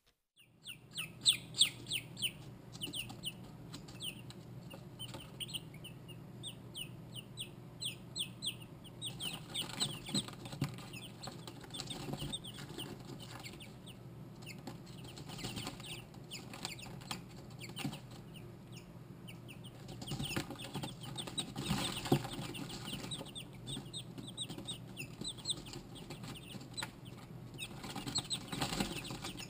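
Silkie chicks, four days old, peeping: many short, high, falling peeps several times a second, with louder flurries now and then, over a low steady hum.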